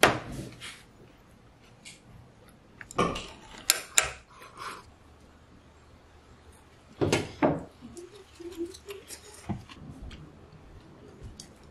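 Scattered clinks and taps of chopsticks, a spoon and bowls against tableware, with quiet stretches between; the loudest knocks come at the very start, about three to four seconds in, and about seven seconds in.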